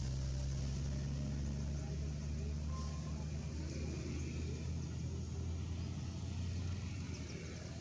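Engine running steadily, a low hum that eases off near the end.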